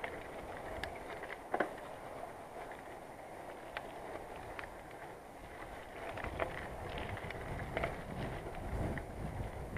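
Bicycle being ridden over a path: a steady rolling noise from the tyres with scattered small clicks and rattles from the bike. About six seconds in, a low rumble of wind on the microphone grows louder.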